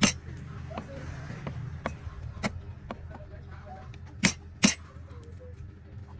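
Cleaver chopping garlic on a thick wooden chopping board: a sharp knock at the start, a few lighter taps, then two loud chops in quick succession about two-thirds of the way through.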